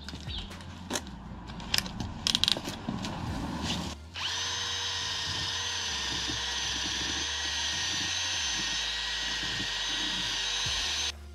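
A Parkside cordless drill spinning a small wire brush against a rusty rear brake drum's hub, scrubbing off rust before painting. A few irregular clicks and knocks come first; about four seconds in the drill starts and runs steadily with an even whine for about seven seconds, then stops abruptly near the end.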